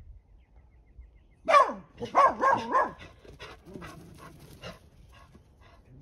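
Dachshunds barking: a run of loud barks starting about one and a half seconds in, then shorter, fainter barks that die away near the end.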